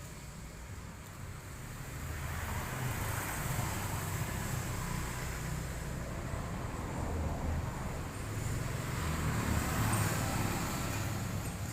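Vertical pellet-making machine running steadily under load, a low hum with a rushing noise over it that swells a little in the middle and near the end.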